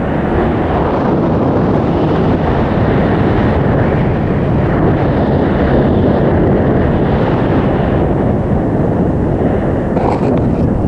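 Wind buffeting the microphone of a camera worn by a snowboarder riding fast through powder, a loud, steady, deep rush. A few brief scratchy sounds come near the end.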